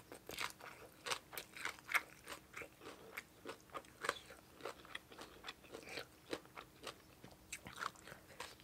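Close-up chewing of a mouthful of shredded green papaya salad, with small crisp crunches several times a second in an uneven rhythm.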